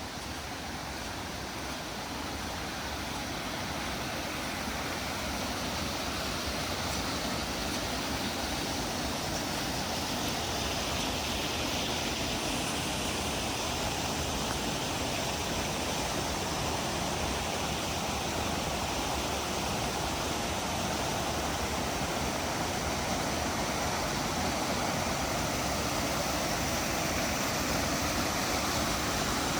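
Running water, a steady rush that grows gradually louder.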